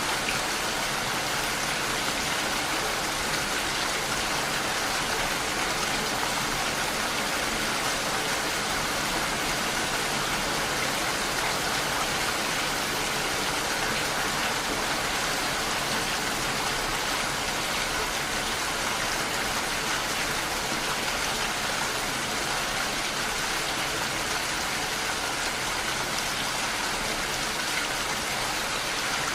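Steady rain falling, an even hiss of many drops with no breaks or changes in level.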